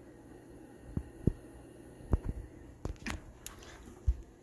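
A faint steady hum with about eight soft, short thumps and clicks at uneven intervals, the way handling knocks sound.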